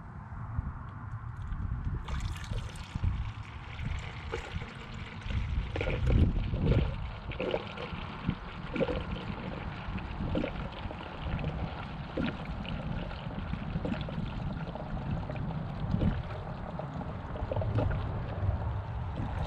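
Engine coolant pouring from a jug into a plastic spill-free funnel on the radiator, a steady splashing stream that starts about two seconds in.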